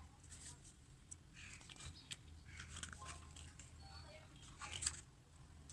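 Faint crinkling and small clicks at irregular moments, from album packaging and its paper and plastic contents being handled.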